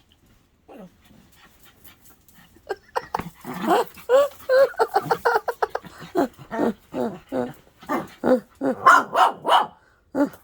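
A dog yipping and whining in quick short calls, several a second, starting about three seconds in, some calls bending up and down in pitch.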